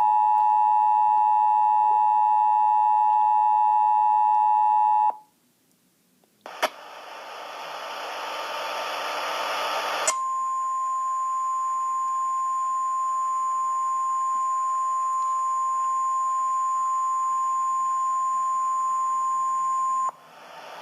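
Emergency Alert System attention signal: a steady, loud two-tone beep for about five seconds that cuts off. After a moment of silence comes a few seconds of static hiss. Then a single steady high tone, the weather-radio warning alarm, holds for about ten seconds over the hiss and stops abruptly near the end.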